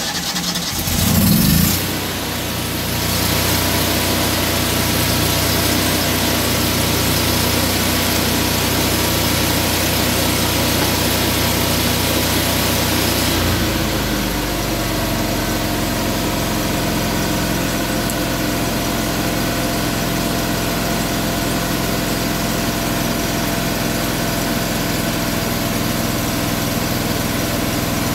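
An engine starts with a brief rising rev, then runs steadily. About halfway through it settles to a slightly lower, quieter running speed.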